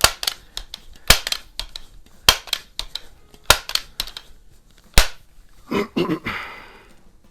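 Multi-pump air rifle being worked: five sharp clacks about a second apart, the fifth the loudest, then a short rougher noise near the end.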